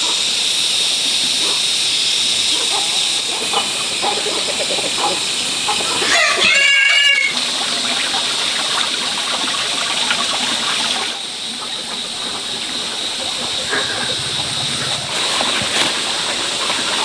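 A rooster crows once, about six seconds in, in a call lasting just over a second, over a steady background hiss.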